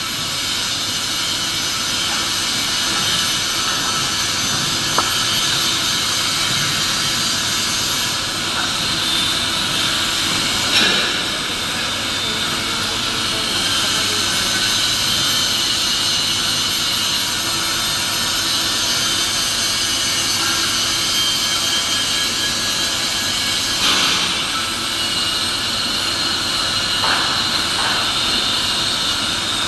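Steady, loud industrial machinery noise filling a large fabrication hall, with a couple of short metal clanks about eleven and twenty-four seconds in.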